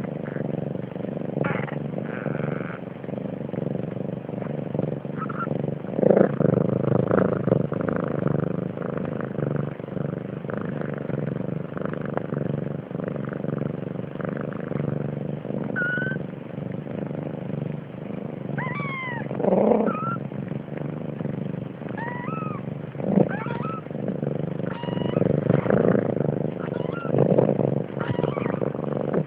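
Siamese cat meowing several times in the second half, short calls that bend up and down in pitch, over a steady low rumble.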